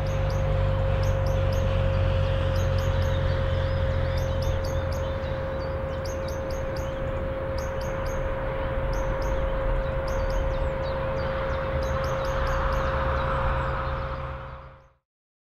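Small birds chirping in short clusters of quick high notes, repeating every second or two over a steady low rumble and a constant hum. All of it fades out near the end.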